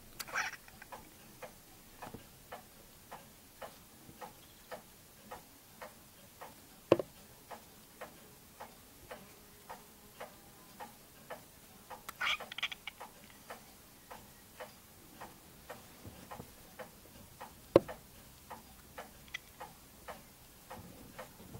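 A clock ticking steadily, about two ticks a second. Two brief higher-pitched sounds come in, one about half a second in and one around twelve seconds in. Two sharp clicks, the loudest sounds, land about seven and eighteen seconds in.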